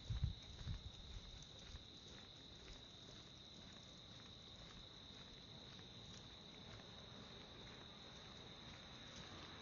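Insects chirring in a steady high-pitched drone, faint, with a few low thumps in the first second.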